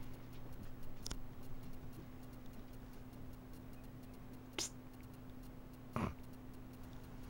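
Quiet room with a steady low hum, broken by three short faint clicks: one about a second in, then two more a few seconds later, about one and a half seconds apart.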